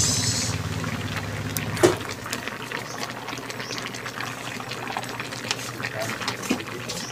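Crabs and mixed seafood bubbling in a coconut-milk sauce in a wide metal pan, with a steady crackle of small pops and a sharper click about two seconds in.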